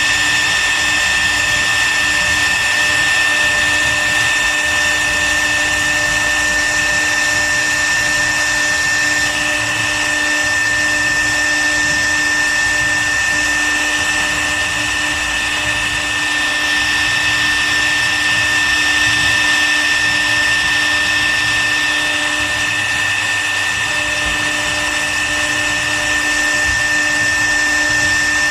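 CNC wood router's spindle running with a steady high-pitched whine over a cutting hiss as it carves, the tone of the cutting shifting slightly a couple of times.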